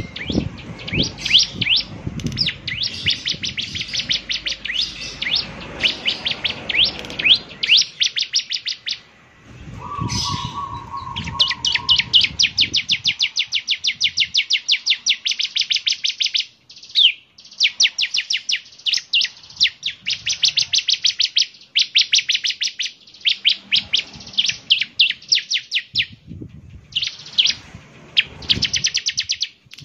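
Ciblek (bar-winged prinia) singing in long, fast runs of sharp, high chirps, about ten notes a second, broken by short pauses.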